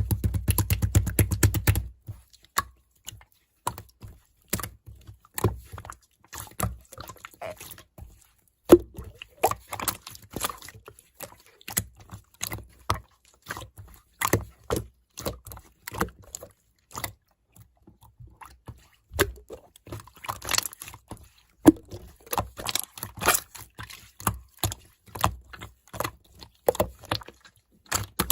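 Slime being squished and poked, with an irregular string of small wet clicks, crackles and pops. It is densest and fullest in the first two seconds.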